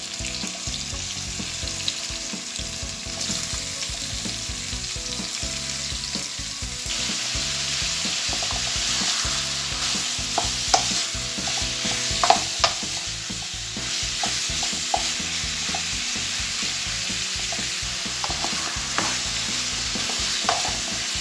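Cubes of seasoned beef tenderloin sizzling in hot oil in a pan on high heat, stirred with a spatula that knocks and scrapes against the pan now and then. The sizzle grows louder about seven seconds in.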